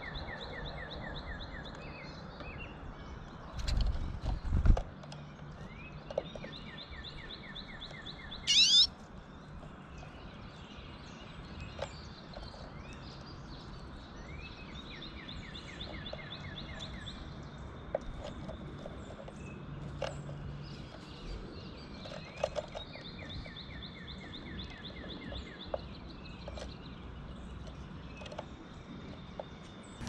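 Outdoor ambience with a small songbird singing rapid, even trills of short high notes, each one to two seconds long, repeated many times. Low thumps come about four seconds in, and a sharp rising squeak near nine seconds.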